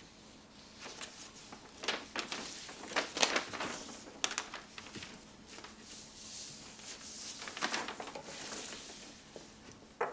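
A large folded paper road map rustling and crackling as it is handled and laid out flat, with sharper crinkles now and then.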